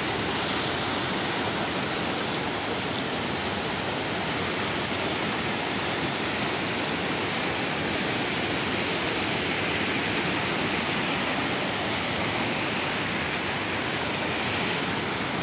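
Muddy floodwater rushing and churning over a washed-out dirt road crossing, a steady, unbroken rush of white water.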